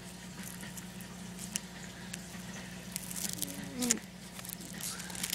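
Fingers picking and peeling at a firmly stuck sticker on the top of a container: faint scattered scratches and small clicks.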